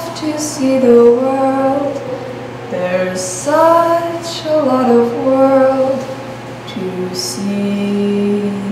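A woman singing a slow melody, holding each note for about a second, over a steady low hum.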